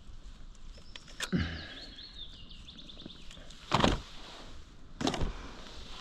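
A small bird sings a quick run of high chirps over the steady hiss of outdoor ambience. Three short, loud rustling knocks cut in, the loudest near the middle.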